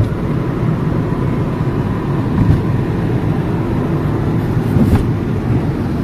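Steady low rumble of a car on the move, heard from inside the cabin: road and engine noise, with a light knock about five seconds in.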